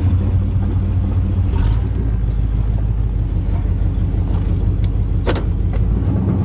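1988 Chevrolet pickup truck driving, a steady low engine and road drone heard inside the cab, with one sharp click about five seconds in.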